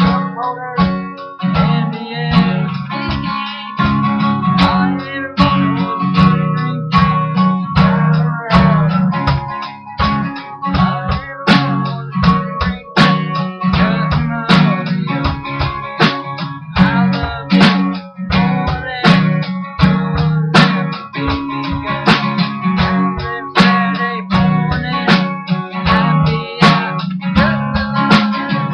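A 1960s Gibson Dove acoustic guitar playing an instrumental country passage, with full bass chords under a run of picked notes and sharp, frequent attacks.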